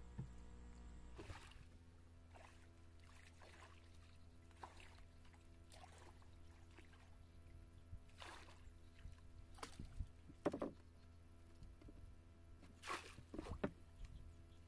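Faint, irregular splashing and sloshing of water, a dozen or so soft swishes, over a steady low hum; the loudest swishes come about ten seconds in and near the end.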